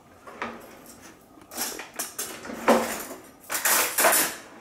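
Rummaging in a kitchen drawer: three short bursts of kitchen items clattering, the louder ones in the second half.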